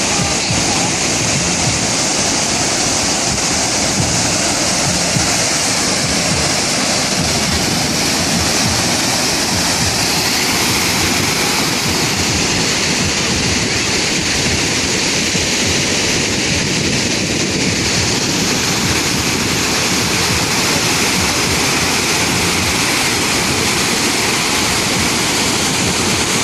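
A Mekong River waterfall: a loud, steady rush of falling water.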